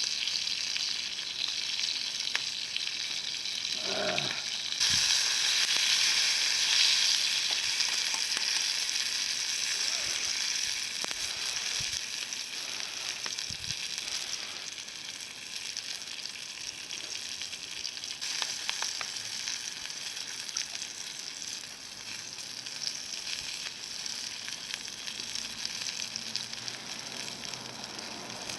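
Food sizzling in a pan over a campfire: a steady high hiss with scattered small crackles, louder from about five seconds in.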